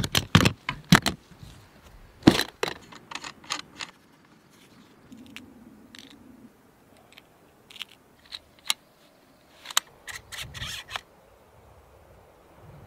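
Sharp plastic clicks and clacks of gear being handled: a hard case's latches snapping open and small parts opened and clipped together. There is a quick run of clicks in the first few seconds, then single clicks spaced out with quiet between.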